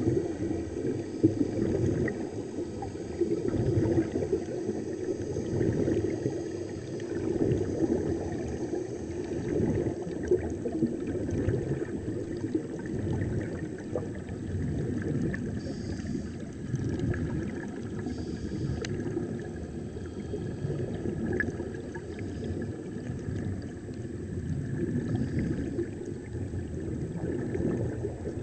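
Muffled underwater noise: a steady low rumble with gurgling water and air bubbles.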